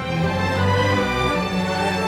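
Orchestral instrumental music.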